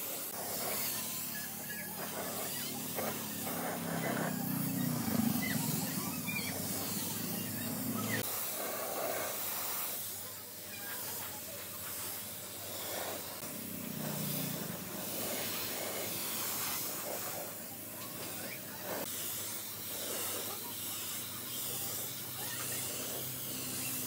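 Pressure-washer water jet hissing steadily as it sprays over a wet wooden stump. A low hum runs under it for the first eight seconds or so and stops suddenly, returning briefly about fourteen seconds in and near the end.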